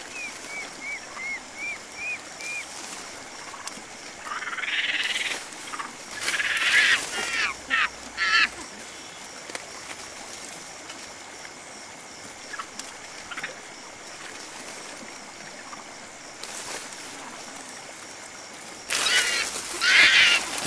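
Wild animal calls: a quick series of about seven short, high chirps at the start, then louder, rougher bursts of calling around five to eight seconds in and again near the end.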